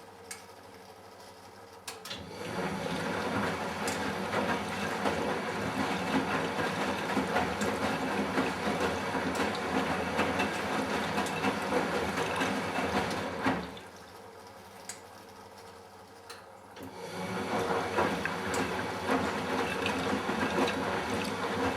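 Matura Autostatic 850 front-loading washing machine tumbling its drum, with water sloshing through the load. It starts about two seconds in, runs for about eleven seconds, pauses for about three seconds, then starts again: the on-off rhythm of the wash cycle.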